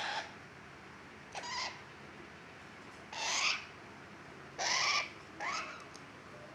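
Pet starling giving about five short, harsh calls spaced a second or so apart, several sliding upward in pitch.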